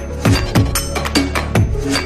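Background electronic music with a steady drum beat over a sustained bass line.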